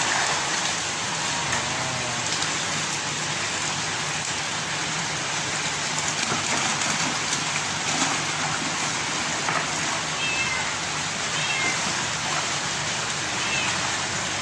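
Steady rushing of water at concrete tilapia ponds, with a few short high-pitched cries in the last few seconds.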